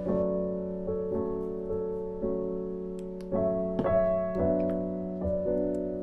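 Background music: a slow, gentle solo piano melody with sustained notes.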